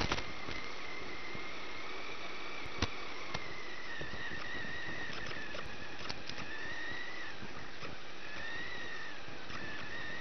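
RC 4x4 truck's motor whining, its pitch rising and falling as the truck speeds up and slows, over a steady hiss, with an occasional sharp click, one about three seconds in.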